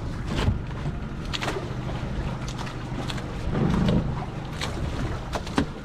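Fishing boat's engine running steadily, with a louder low rumble between about three and a half and four seconds in and scattered short knocks and clicks.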